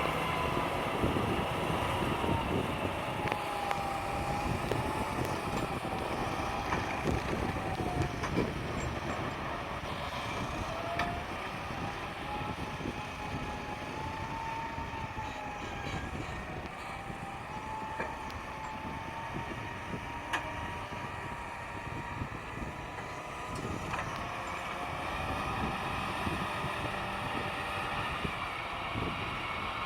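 Tractor engine running steadily, with a whine that slowly drifts up and down in pitch over a low rumble.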